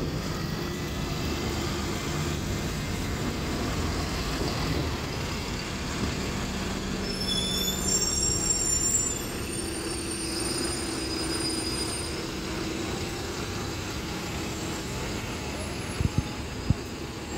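City street traffic with double-decker buses running, their engines humming steadily. About halfway through comes a high-pitched metallic squeal lasting about two seconds, and a couple of short knocks follow near the end.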